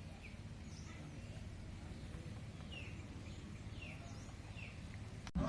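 Birds chirping in short falling calls, one every second or so, over a steady low background rumble. The sound cuts off abruptly near the end.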